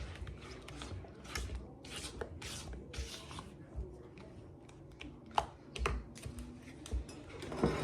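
Kitchen handling noise: several rubbing, scraping swishes in the first few seconds, then a few sharp light knocks and clicks later on.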